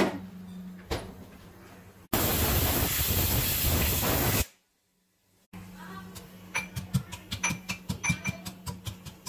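A knock, then a stovetop pressure cooker hissing loudly as steam escapes for a couple of seconds. After a short break, a steel pestle pounds in a small steel mortar: sharp, ringing metallic clinks, about three a second.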